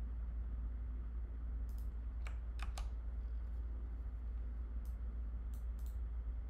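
Several separate keystrokes on a computer keyboard, three close together a little over two seconds in and a few more near the end, over a steady low hum.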